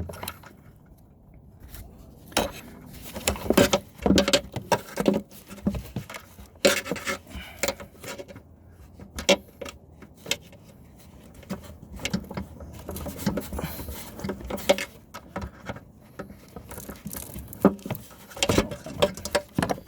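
Hand-work on a self-propelled mower's drive cable and its stubborn plastic clips: irregular clicks, knocks and rattles of plastic and metal, some in quick clusters.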